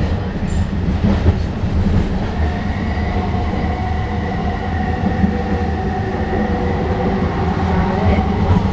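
SkyTrain car with linear induction motors running along the elevated guideway, heard from inside the car: a steady low rumble with high whining tones over it and a few light knocks from the track.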